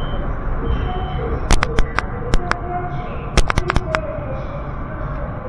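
Wuhan Metro Line 2 train running, heard inside the carriage as a steady low rumble, with two clusters of sharp clicks and clacks, the first about one and a half seconds in and the second between three and four seconds in.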